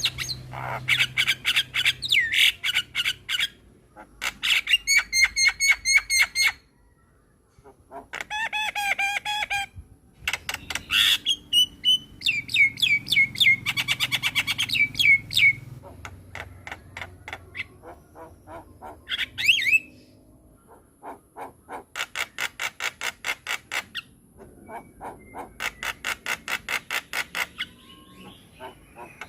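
Javan myna (jalak kebo) singing in varied bursts: rapid rattling trains of sharp notes at several a second, harsh squawks, and whistled phrases, with a brief pause about seven seconds in.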